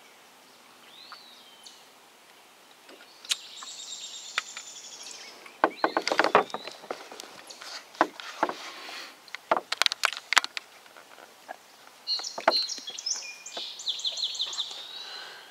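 Songbirds singing in the riverside trees: a high trill about four seconds in and a run of quick repeated notes near the end. In between, a string of sharp knocks and clunks, the loudest sounds, as the camera is handled and moved about in the canoe.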